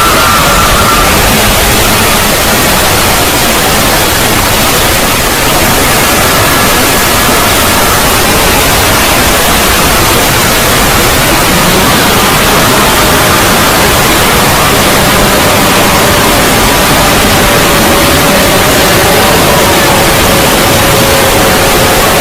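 Heavily distorted 'void' logo sound effect: loud, unbroken static-like hiss across all pitches, with faint tones sliding slowly downward underneath.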